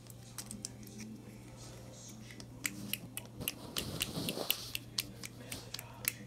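Light, irregular clicks and taps of a plastic toy horse and a small plastic figurine being hopped and handled on a vinyl floor, with a brushing rustle about four seconds in. A steady low hum runs underneath.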